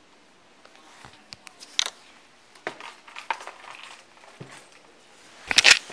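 Close handling noise on a body-worn camera's microphone: a string of clicks, rubs and rustles as a hand and object move against the camera, with a louder short scrape about five and a half seconds in.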